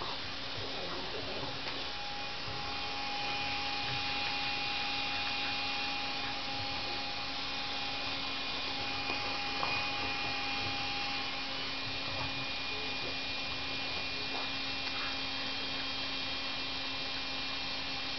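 Vacuum cleaner running steadily: an even motor hum with a constant whine over a rushing hiss.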